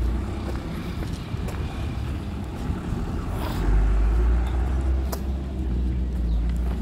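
Street ambience with a steady low rumble that grows louder a little past halfway, and a couple of sharp clicks.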